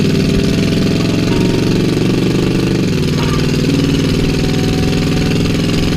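AMC 327 V8 engine of a 1965 Rambler Marlin running steadily under way, its exhaust note stepping down in pitch a little under three seconds in.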